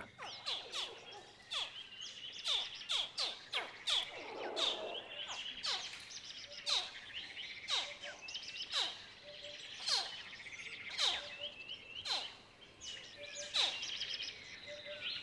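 Nile crocodile hatchlings calling from the nest: many short, high chirps, each dropping quickly in pitch, coming irregularly more than once a second. A faint high twittering runs behind them.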